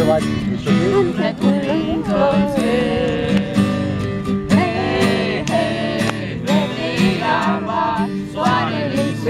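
Acoustic guitar strummed in a steady rhythm while people sing a song.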